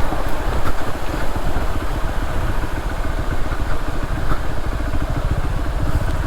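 Motorcycle engine running steadily at low speed, with a dense low pulsing throughout.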